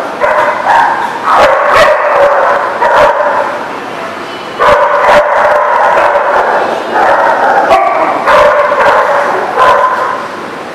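Dogs barking and yipping during rough play, in loud repeated bouts of a second or more, with sharp clicks in between.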